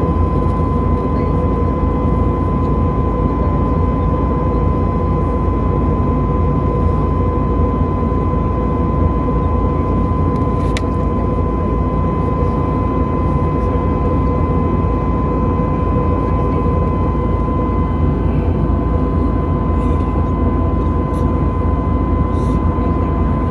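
Steady cabin noise of an Airbus A320neo in flight: a dense, even rumble of engines and airflow with a constant hum-like tone on top.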